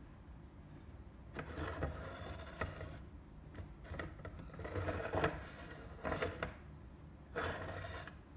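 A figure's display base being pushed round by hand on a wooden tabletop, scraping in about four short goes.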